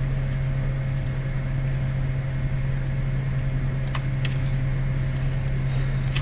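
Steady low electrical hum with a fainter high whine, and a scattered handful of sharp computer mouse clicks.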